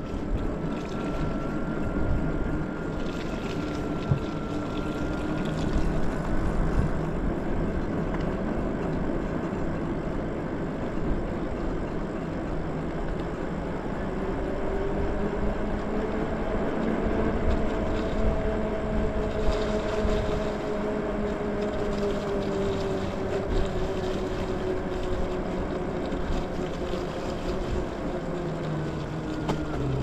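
Lyric Graffiti e-bike riding along a wet, slushy road: the electric motor whines over a steady rush of wind and tyre noise. The whine climbs in pitch about halfway through and then sinks slowly near the end.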